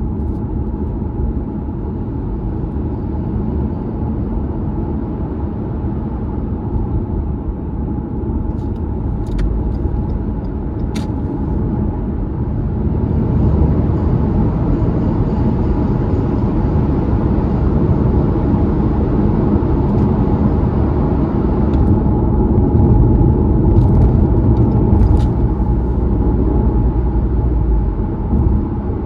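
Road noise of a Toyota Crown Athlete (210 series) being driven: a steady low tyre rumble on the road surface. It grows louder about halfway through, with a few faint ticks.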